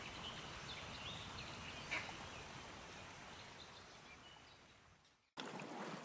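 Faint rainforest ambience bed with scattered small bird chirps and a short click about two seconds in, fading out near the end. It cuts abruptly to a different faint watery ambience.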